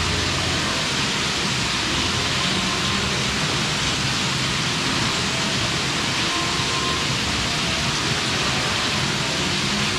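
Indoor fountain, water running down dark tiled walls into a pool: a steady, even splashing rush that does not change.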